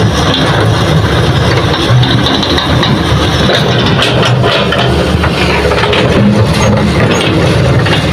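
Hitachi crawler excavator's diesel engine running steadily under load while it digs hard soil, with irregular knocks and scraping from the bucket working the ground.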